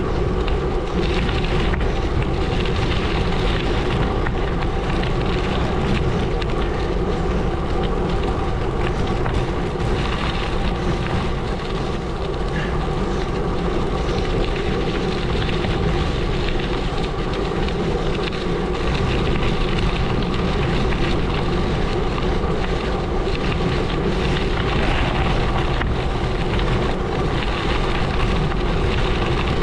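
Gravel bike rolling steadily along a gravel road: the tyres crunch and crackle over loose stones under a constant rush of wind on the microphone.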